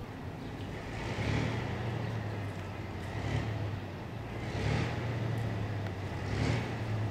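Vintage coach's engine idling with a steady low drone, swelling four times in brief revs.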